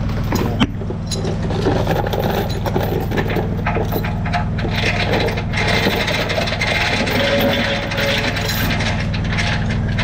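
An engine running steadily, with scattered knocks, clinks and scraping from hand work over it, and one sharp knock about half a second in.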